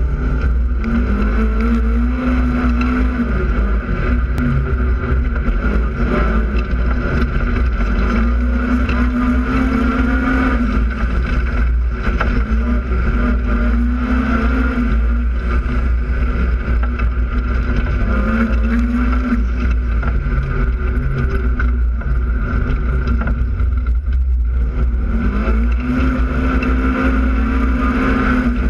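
Polaris RZR side-by-side's engine running under way, revving up and easing off several times, over a heavy steady low rumble.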